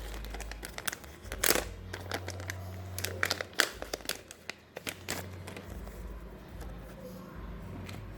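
Plastic packaging crinkling and tearing as a squishy toy is unwrapped: a run of sharp, irregular crackles, loudest about one and a half and three and a half seconds in.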